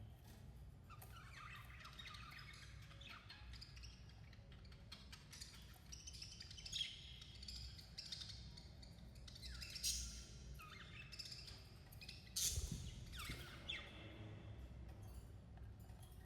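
Budgerigars chirping and squawking in a busy, continuous chatter of short calls, some sweeping sharply downward, with louder calls about ten and twelve seconds in, over a low steady hum.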